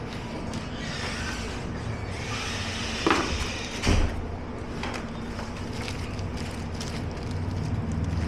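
Plastic and paper packaging rustling as a parcel is unpacked by hand, with a sharp crackle about three seconds in and a heavy thump just after, over a steady low hum.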